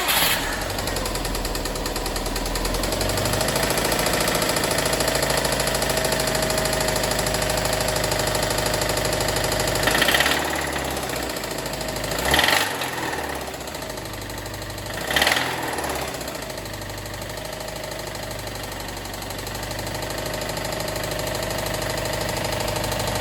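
Subaru WRX STI turbocharged flat-four engine running with a fast, regular knock, its throttle blipped three times about ten, twelve and fifteen seconds in. The abnormal noise is judged by the owner serious enough that the engine has to be pulled.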